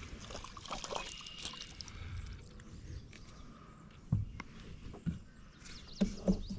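Light water splashing and dripping, with small crackling clicks early on and four dull knocks in the second half.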